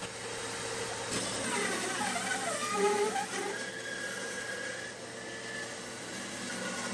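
Bandsaw running and cutting a curve through a thick laminated wooden boat stem.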